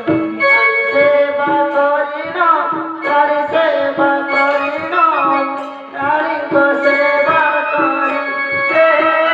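Folk-theatre song: a voice singing a gliding melody over steady held instrument notes, with regular hand-drum strokes.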